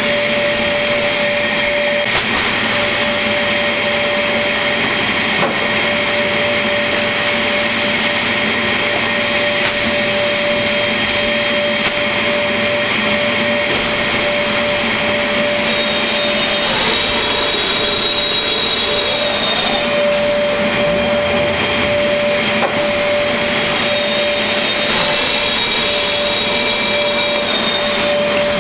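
Automatic MDF board-cutting machine running: loud, steady saw-and-motor noise with a constant whine. A little past halfway the whine dips in pitch and climbs back before settling.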